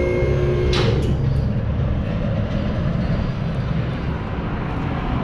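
A low, steady machine or vehicle rumble, with a short hiss about a second in.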